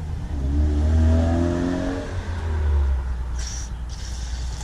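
A passing car or truck engine, rising in pitch as it accelerates during the first two seconds, then fading. A brief hiss comes near the end.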